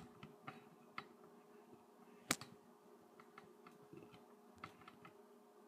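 iMac G4 finishing its boot to the desktop: a faint steady hum with scattered light clicks and ticks, and one sharper click about two seconds in.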